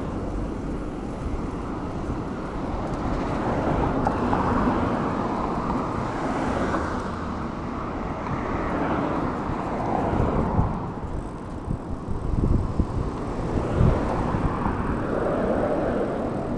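Street traffic heard from a moving bicycle: cars going by over a continuous rushing road noise that swells and fades, with a few low thumps in the last few seconds.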